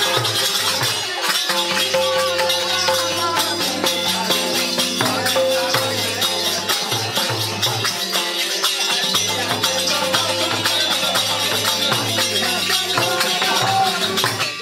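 Tharu folk dance music played live: a barrel hand drum (madal) beating a steady rhythm and a harmonium holding sustained notes, over rattling, jingling hand percussion.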